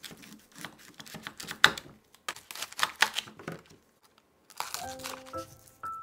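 Irregular crinkling and rustling for about four seconds, as of something being handled. After a brief pause, light background music with a simple melody comes in near the end.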